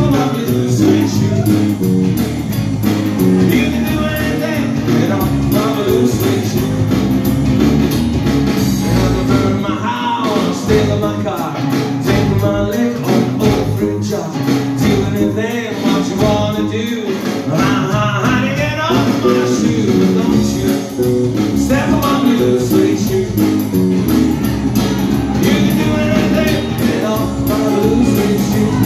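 Live rock and roll band playing, with electric bass and drum kit keeping a steady beat. A pitch-bending melody line rides over it through the middle stretch.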